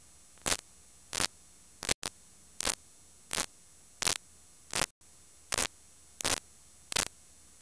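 Blank VHS tape playing back: short bursts of static, about one every 0.7 seconds, over a faint steady hum and hiss.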